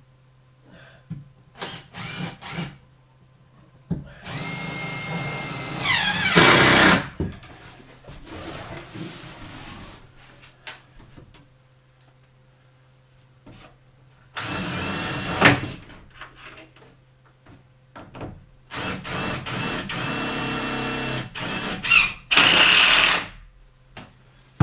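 Power drill driving wood screws into a plywood panel, in three runs of a few seconds each, with a short pause between them; the motor's pitch shifts near the end of a run as the screw seats.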